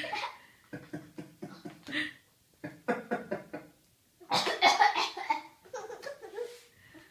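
A person coughing over and over, mixed with bouts of laughter. The loudest, harshest cough comes a little past the middle.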